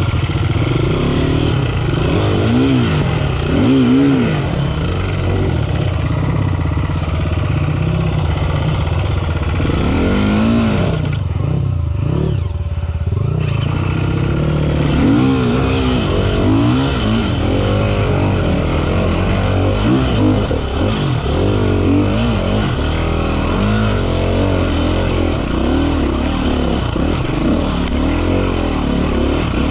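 KTM EXC 350F four-stroke single-cylinder enduro bike engine revving up and down repeatedly as it is ridden along a trail, easing off for a moment about eleven seconds in.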